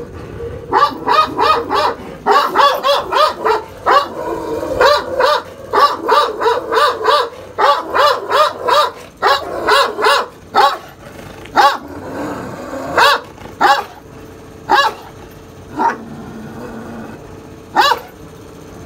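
Akbaş dogs barking: a fast run of barks for the first ten seconds or so, then single barks a second or two apart.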